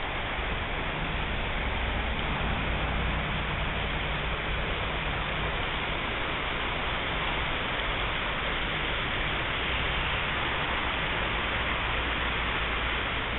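River water running over a shallow rocky riffle: a steady rushing hiss.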